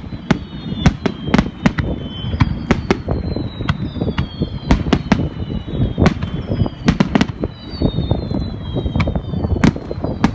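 Aerial fireworks bursting in quick succession: sharp cracks and a dense low rumble of booms, with repeated high whistles that fall in pitch.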